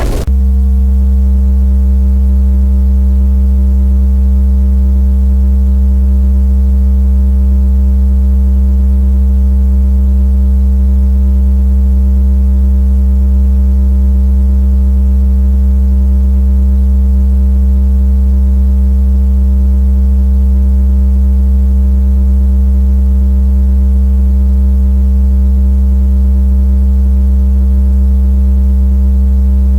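Loud, steady, low electronic drone: a deep synthesized buzzing tone with a few higher overtones. It cuts in abruptly and holds at one pitch and level without change.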